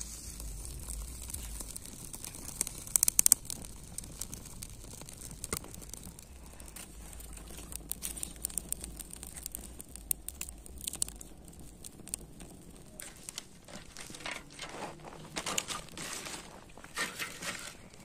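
Small campfire of dry twigs and grass crackling as it catches and burns: irregular sharp pops and snaps, loudest in a quick cluster about three seconds in.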